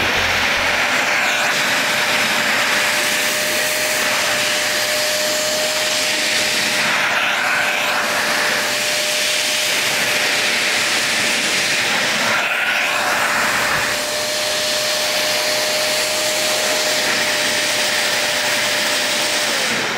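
Deerma DX115C handheld stick vacuum cleaner switching on and running with a steady rush of air and a high motor whine; near the end it is switched off and the whine falls in pitch as the motor spins down.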